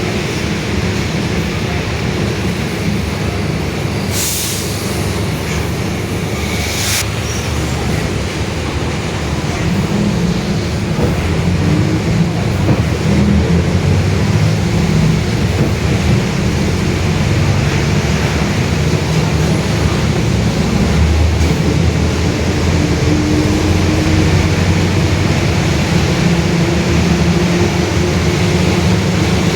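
Mercedes-Benz OF-1721 city bus under way, its differential growling very loudly over the running noise, a low hum that rises and falls in pitch with road speed. Two short clicks come about four and seven seconds in.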